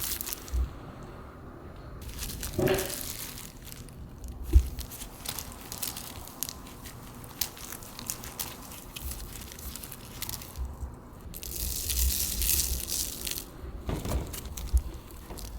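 Aluminium foil crinkling and crackling as it is shaped and handled, with a few light knocks. About twelve seconds in comes a short stretch of high hiss as salt is sprinkled onto the garlic in the foil.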